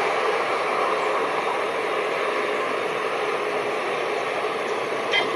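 An EMD WDP-4 diesel-electric locomotive and its passenger train running toward the listener, a steady mix of engine and rolling noise.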